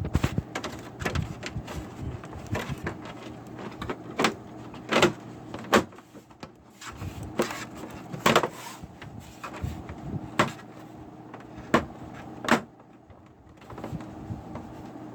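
The plastic housing of a Samsung UN32H5203AF LCD TV being pried open: about eight sharp snaps and cracks come at irregular moments, with softer creaking and scraping between them, over a faint steady hum.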